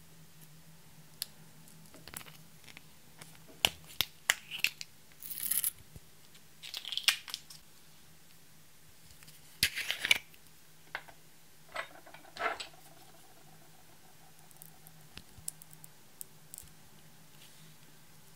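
Hands handling and opening small plastic cosmetic jars: scattered sharp clicks and taps of lids and containers, with short scraping and rustling sounds in between. The handling is busiest in the first two-thirds, with only light taps near the end.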